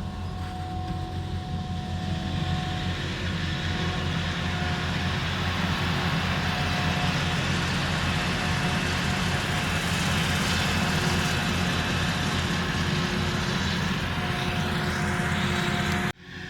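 Claas Jaguar 970 forage harvester running under load while harvesting triticale, with a deep engine drone and a steady mechanical whine on top. It grows louder about two seconds in and cuts off abruptly near the end.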